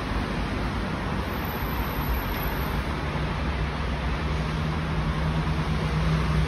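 Steady rumble and hiss of road traffic, with a low steady hum coming in about three seconds in.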